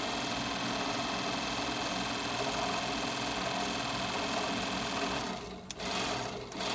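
Ford 2000 tractor's DC generator, jumpered and fed battery voltage, spinning as an electric motor with a steady whir. It cuts out briefly twice near the end, with a click between. Running as a motor shows the generator tests good.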